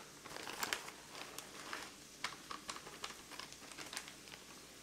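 Shredded cheddar cheese shaken from a plastic bag into a glass bowl: faint, irregular rustling of the bag and light pattering of the shreds.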